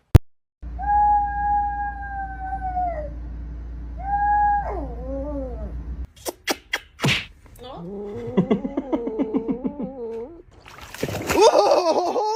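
A pet animal howling: a long, steady, held call lasting a couple of seconds, a shorter one that bends down in pitch, then a lower, wavering, pulsing cry and a louder rough cry near the end. A few sharp clicks come in the middle.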